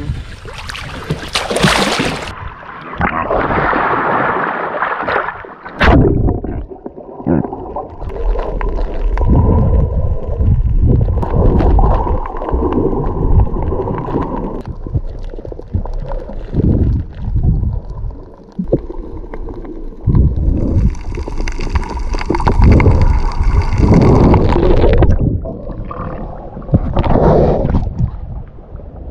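Sea water sloshing and gurgling around an action camera held in and out of the water while snorkeling, in irregular surges.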